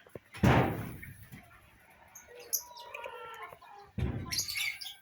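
Two handling bumps, the louder about half a second in and another at four seconds, with birds chirping in between.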